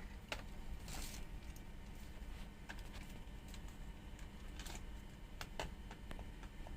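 Scattered light clicks and taps of a plastic drill battery pack and charger being handled and fitted together, with a brief rustle about a second in, over a steady low hum.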